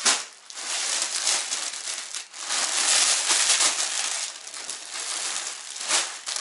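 Plastic packaging crinkling and rustling as clear plastic bags of clothing are handled and set down. It starts with a sharp rustle, grows louder in the middle, and ends with another brief burst.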